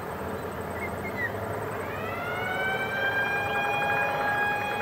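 Blast warning siren winding up in pitch over about a second, then holding a steady wail. This is the warning sounded just before a rock-blasting shot is fired.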